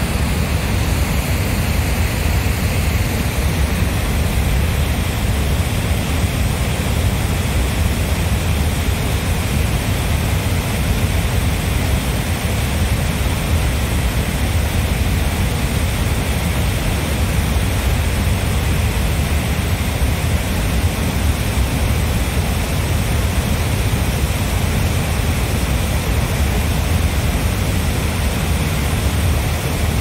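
Floodwater rushing strongly and steadily out of an overflowing reservoir: a loud, even roar of water.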